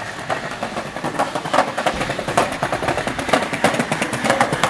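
Skateboard wheels rolling over paving slabs: a fast, uneven clatter of clicks.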